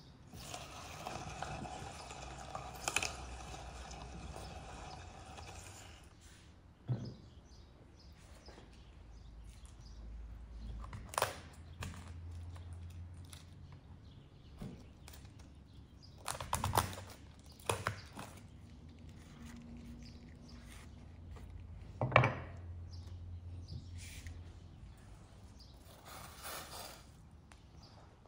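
Hand-cranked metal meat grinder turning steadily as it pushes onion through its plate for about the first six seconds. After that come separate sharp knocks and clicks of kitchen work, the loudest about two-thirds of the way through.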